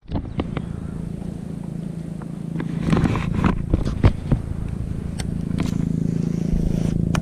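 A small boat motor running at a steady hum, picking up slightly near the end, with scattered knocks and clicks from fishing tackle being handled.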